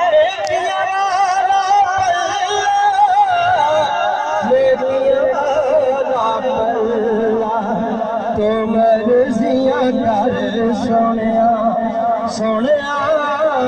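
Man singing a Punjabi naat, drawing out long wavering held notes with no clear words; a lower steady tone joins about four seconds in.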